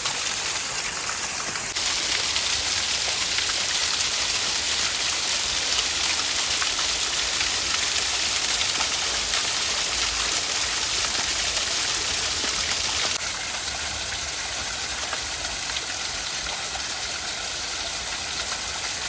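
Small waterfall, about 5 to 8 feet high, pouring into a ravine pool with a steady rush of splashing water. The sound grows suddenly louder about two seconds in and drops back again after about thirteen seconds.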